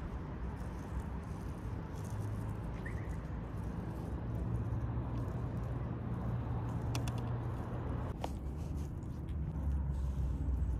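Steady low rumble of city traffic from the street below, with a few light clicks about seven and eight seconds in.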